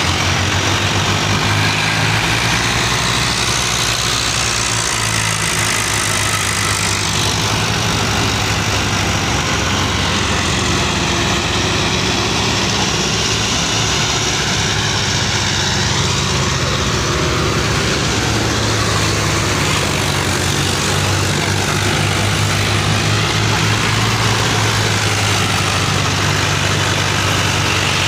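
Farm tractors' diesel engines running hard under load as they pull against each other, a steady low throbbing that holds for the whole stretch.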